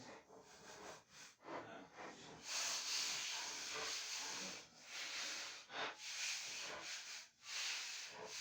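Long rasping strokes of a hand tool worked across wood, each lasting about a second with short breaks between, starting about two and a half seconds in after fainter scraping.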